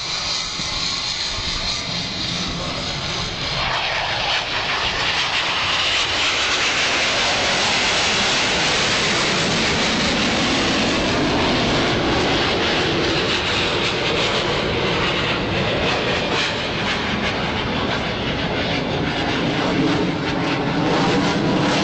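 Panavia Tornado and F-4 Phantom military jets flying past low, their jet engine noise swelling about three and a half seconds in and staying loud as they pass.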